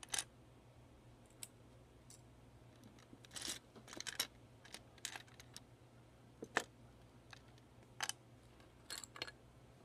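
Plastic Lego bricks clicking and clattering as hands pick through and fit loose pieces: irregular sharp clicks, the loudest about six and a half seconds in.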